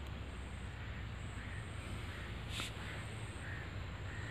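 Rural field ambience: a steady high insect drone and a steady low rumble, with a few faint bird calls about a second apart. There is one short click about two and a half seconds in.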